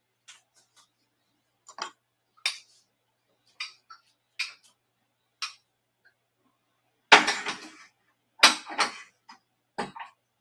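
Dishes being handled: scattered light clinks and knocks, then two louder clattering bursts with a ringing tail about seven and eight and a half seconds in.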